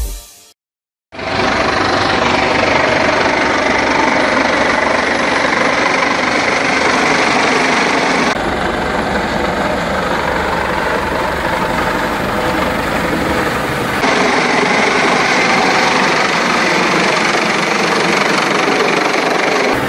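Helicopter flying low close overhead: loud, steady rotor and turbine noise that starts about a second in. The sound changes abruptly twice, about 8 and 14 seconds in.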